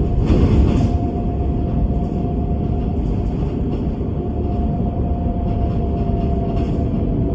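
Bus running along: a steady low rumble with a constant whine over it that sags slightly in pitch near the end, and a brief rattling burst about half a second in.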